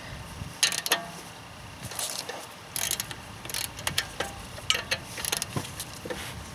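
Ratchet wrench with a hex bit socket clicking in short, irregular bursts while running in a brake rotor's locator screw.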